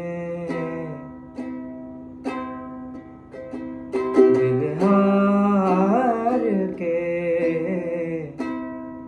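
Ukulele strummed in slow, spaced chords that ring out between strokes, with a man singing a drawn-out, wavering melody line over it in the middle.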